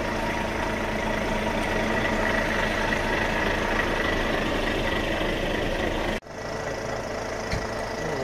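Heavy diesel truck engine idling steadily, with a thin high whine over it. The sound drops out abruptly for an instant about six seconds in, then the idling carries on a little quieter.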